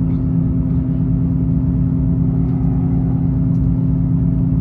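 Class 158 diesel multiple unit heard from inside the carriage while running: a steady drone from its underfloor diesel engine with the rumble of wheels on the rails.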